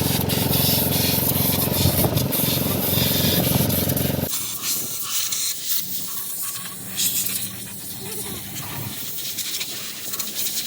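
A machine running with a steady hum and a loud hiss, which stops abruptly about four seconds in, leaving quieter scraping and rubbing sounds.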